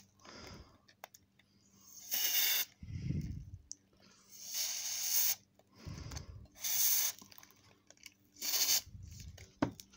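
Aerosol lubricant sprayed through a straw nozzle into a 2x2 speed cube, hissing in four short bursts spread over several seconds, with softer handling noises between the sprays.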